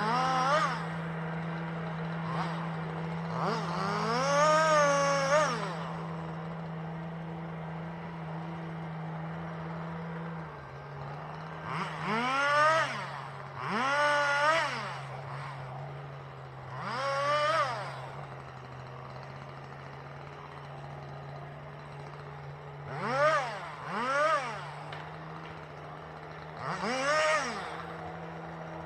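Chainsaw revved in short bursts, each rising and falling in pitch, about eight times, one longer burst near the start. Under it an engine idles steadily, its pitch dropping slightly about ten seconds in.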